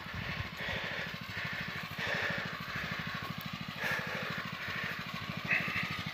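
Single-cylinder petrol engine of a Zimbru 6559 7 HP motor hoe idling steadily in a fast, even putter, with a few light rustles now and then.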